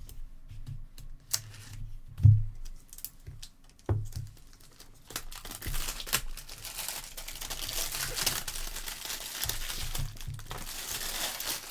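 Trading card box being handled, with a few sharp knocks and clicks. From about five seconds in comes continuous crinkling and tearing of the box's plastic wrapping as it is opened.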